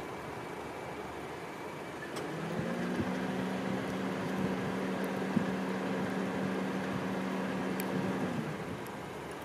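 Container crane hoist machinery running: a steady low hum of two tones that comes in about two seconds in and stops near the end, over a steady background rumble, with a few light knocks.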